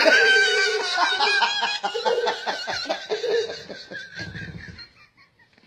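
A little girl's voice making long, shaky, pulsing vocal sounds for about four seconds, like a bleat or a laugh, followed by a deeper pulsing sound, then it fades out shortly before the end.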